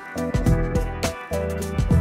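Background music with a beat: held chords under regular drum hits.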